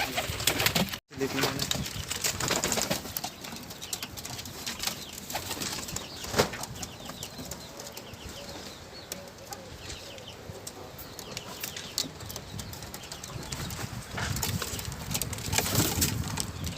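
Birds in a small coop: low cooing calls and wing flapping, with scattered clicks and scratches of movement.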